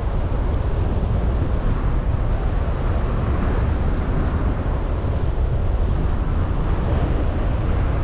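Wind noise from the airflow over a paraglider pilot's camera microphone in flight, in strong wind: a loud, steady, low rumble.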